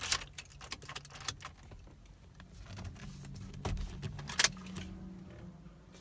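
Car keys jangling, with several sharp clicks, as the key is put into the ignition of a 2009–2013 Toyota Corolla.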